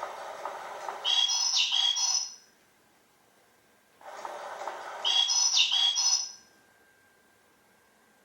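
Electronic bird chirping from a GiGwi motion-sensor cat toy, set off twice about four seconds apart. Each time a whir of the toy's feather-moving mechanism comes first, then about a second of quick, high tweets that swoop up and down.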